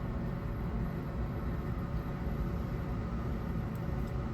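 Cat NextGen skid steer running steadily at idle, a low even rumble heard from inside the cab.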